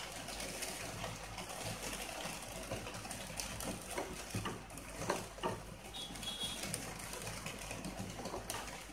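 Wooden spatula stirring a simmering, thickening milk-and-flour sauce in a non-stick pan, with soft scrapes and a few light knocks against the pan, most of them in the middle.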